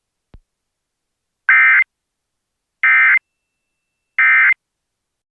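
Emergency Alert System end-of-message (EOM) signal: three short, identical bursts of SAME digital data tones, each about a third of a second long and about a second and a half apart, marking the end of a tornado warning broadcast. A faint click comes just before the first burst.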